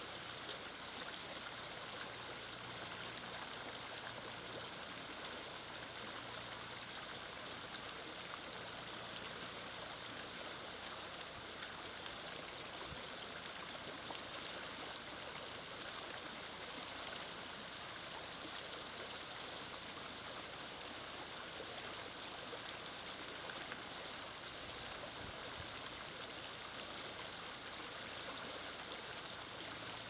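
Shallow stream running over rocks: a steady rush and gurgle of flowing water.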